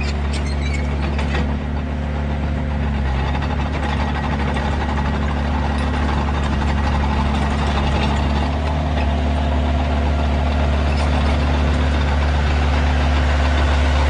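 Diesel engine of a Komatsu D21A-8 crawler dozer running steadily as the machine travels, growing louder as it comes close. A few sharp clicks sound in the first second or so.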